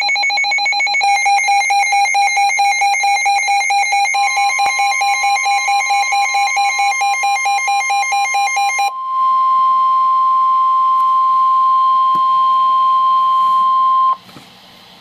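A weather radio's rapid pulsing electronic alert beep. About four seconds in, the steady NOAA Weather Radio 1050 Hz warning alarm tone joins it. The tone carries on alone after the beeps stop about nine seconds in, then cuts off abruptly shortly before the broadcast voice starts reading the flood warning.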